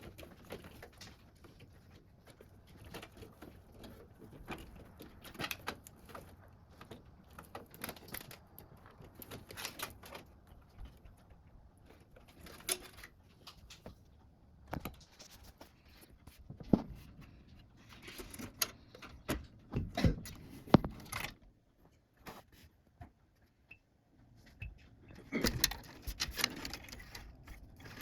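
Clicks, clinks and knocks of small metal and plastic computer parts being handled and fitted during PC assembly. The sharp knocks come scattered, busiest about two-thirds of the way in and again near the end.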